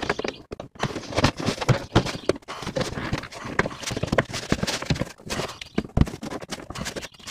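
Plastic bumper cover being pushed by hand into the fender lip at the wheel well, making a quick, irregular run of clicks, knocks and scrapes as it is worked into place.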